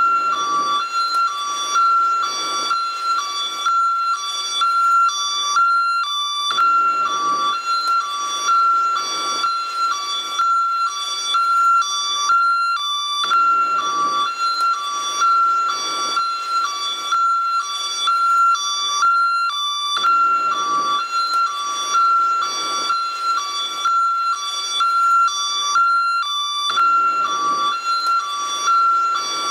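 American ambulance siren in its hi-lo two-tone mode, switching steadily back and forth between a higher and a lower note.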